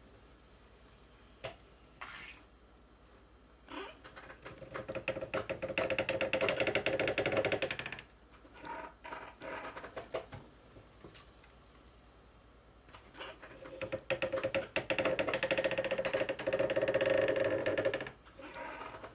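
Foot-pedal-driven syringe cleaning rig on linear bearings working through two pump strokes, each a dense mechanical rattle and squeak lasting about four seconds, as it jets water through needles onto a resin print in a plastic tub. A few short clicks fall between the strokes.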